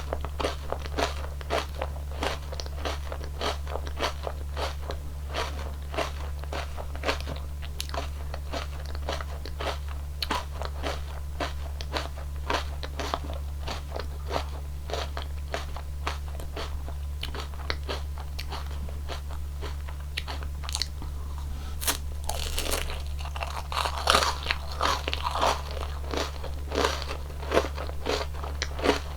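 Close-miked crunching and chewing of a crisp wafer ice cream cone: many rapid crunches, with a louder run of bites about three-quarters of the way through, over a steady low hum.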